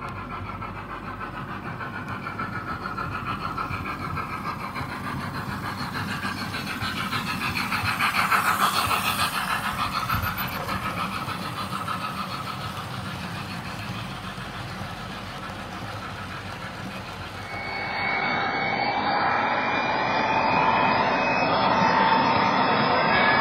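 Model train running through a layout tunnel: the rumble of its wheels and motor on the rails builds to a peak as it passes close, about a third of the way in, then fades. Near the end a louder, steadier running sound with a whine takes over, heard from on board the moving train.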